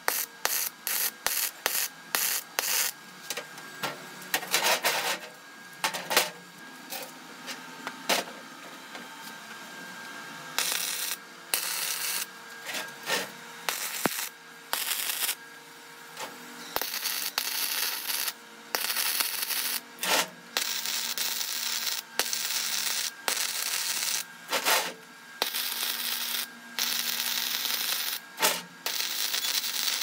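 MIG welder arc crackling and hissing in stop-start bursts while welding steel plate: a quick run of short tacks at first, then longer weld runs of a few seconds each with short breaks between.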